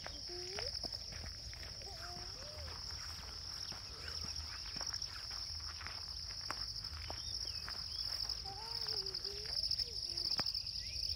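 A continuous high-pitched chorus of insects trilling without a break, with faint clicks and a low rumble.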